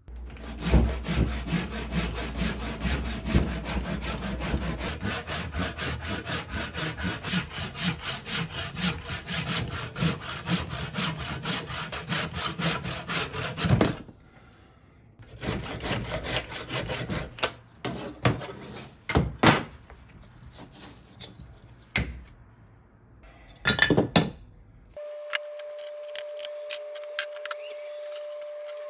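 Handsaw cutting through a wooden spoon blank with fast, even strokes, about three a second, for roughly fourteen seconds, then slower, broken strokes and a few sharp knocks. Near the end a steady hum starts and a brush sweeps sawdust across the table.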